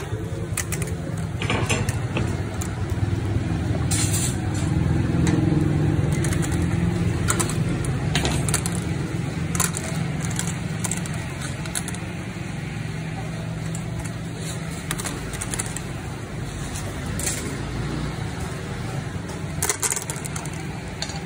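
Metal kebab skewers clinking and scraping as they are turned by hand over a charcoal grill, sharp clinks coming irregularly every second or two. Underneath runs a steady low hum, loudest in the first half.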